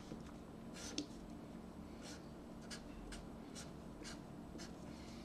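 Sharpie permanent marker drawing on paper: a series of short, faint scratchy strokes as an arrow is drawn.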